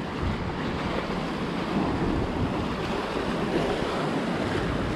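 Rough ocean surf breaking on a rocky shore, a steady wash of waves, with wind buffeting the microphone.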